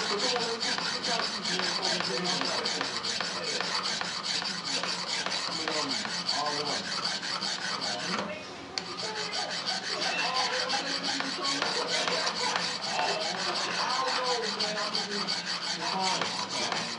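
A hand file rasping over the steel blade of a hand-forged tanto clamped in a vise: continuous rough-filing strokes, with a brief pause about eight seconds in.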